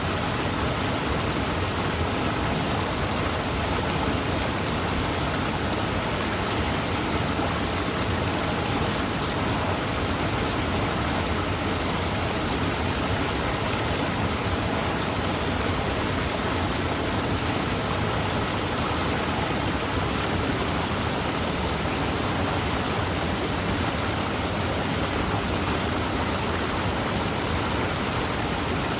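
Fast-moving river flowing, a steady, unbroken wash of water noise.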